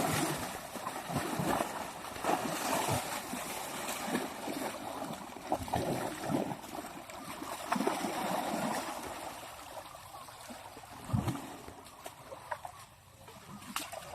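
Water sloshing and splashing as elephants play in it, with repeated heavier surges that die down in the second half.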